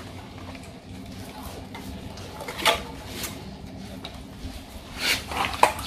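Scattered clicks and light clatter of scooter parts being handled and pulled loose during disassembly. There is a sharp click about two and a half seconds in and a few more near the end.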